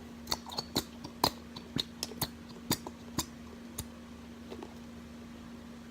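A plastic bottle of glue being squeezed empty into a bowl for slime: a dozen or so sharp, irregular clicks and crackles over the first four seconds. A steady low hum runs underneath.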